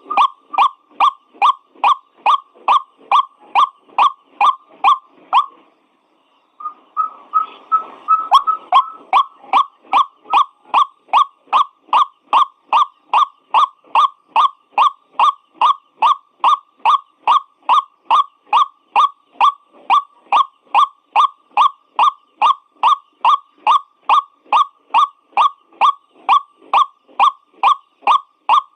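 White-breasted waterhen (ruak-ruak) calling in a fast, steady series of short repeated notes, about two and a half a second, with a break of about a second near six seconds in before the series resumes.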